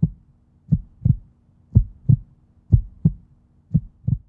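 Heartbeat sound effect: pairs of low thumps, lub-dub, about once a second, over a faint steady hum.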